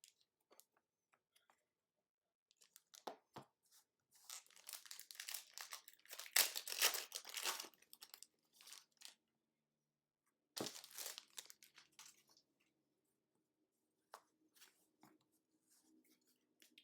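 Packaging on a box of trading cards being torn open and crinkled by hand, in bursts. The longest tearing comes in the middle, with a shorter burst later.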